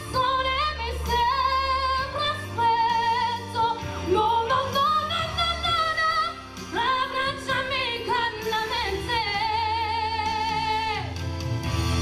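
A woman singing a ballad into a microphone over a backing track, her voice full of vibrato. Near the end she holds one long wavering note and then lets it go.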